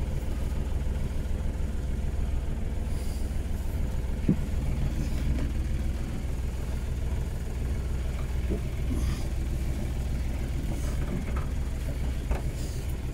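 A steady low engine hum, with a few faint knocks.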